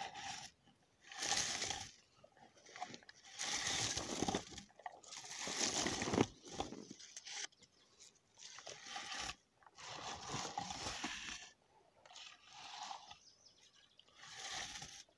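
Bilberry shrub leaves and twigs rustling close by as berries are picked by hand, in irregular short bursts with brief pauses between.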